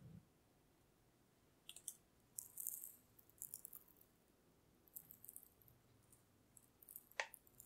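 Powdered sugar being sifted over tarts, the sieve tapped and shaken in several short bursts of soft, high rattling. A sharper click comes near the end.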